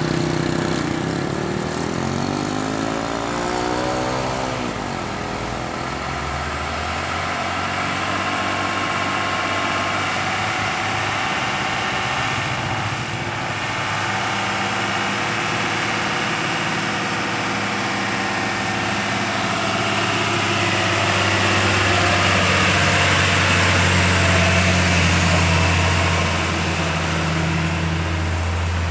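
Road vehicle engine sound. An engine speeds up with a rising pitch over the first few seconds, then runs steadily, growing louder between about twenty and twenty-six seconds in.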